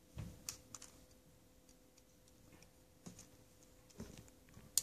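Faint, scattered clicks and taps of small rubber loom bands being stretched and snapped over the tines of a metal fork, with one sharper click near the end.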